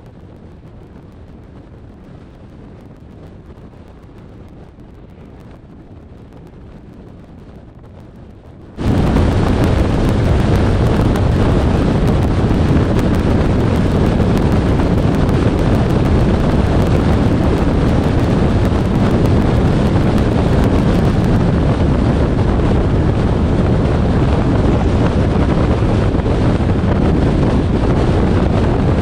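Wind and road noise from a moving car: a low steady rush that jumps abruptly to a much louder, full wind rush over the microphone about nine seconds in, then holds steady.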